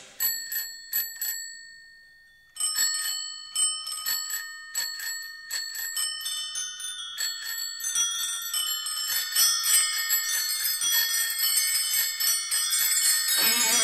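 Many bicycle bells ringing as the bell interlude of a rock song. A few rings come first, there is a short pause, then crowds of bells ring over one another more and more densely, and a guitar comes in at the very end.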